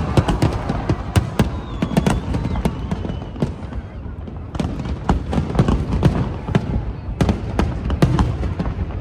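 Fireworks going off in quick volleys of sharp bangs and crackles, thinning out briefly around the middle, then coming thick and fast again.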